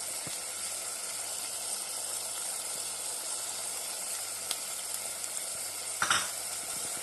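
Minced mutton sizzling steadily in hot oil in an open pressure cooker as it is fried with onion, tomato and spice powders, with a brief louder clatter about six seconds in.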